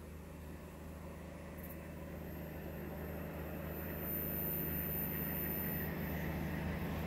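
DB class 218 diesel-hydraulic locomotive working at full power, heard from a distance as a low, steady engine drone that grows steadily louder as the train approaches.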